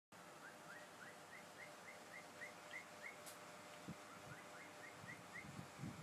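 Cockatiel giving a faint series of short rising chirps, about three or four a second, with a brief pause in the middle. A light click and a soft thump come a little past halfway.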